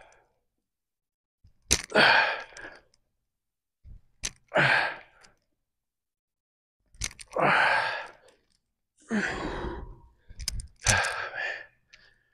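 A man breathing out hard in about five forceful exhales, a couple of seconds apart, from the effort of each dumbbell deadlift rep.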